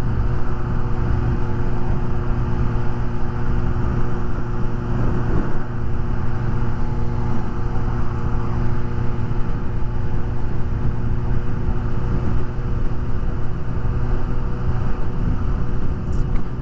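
Suzuki GSX-S750's inline-four engine running at a steady speed on the move, its note holding steady, under heavy wind rushing over the microphone.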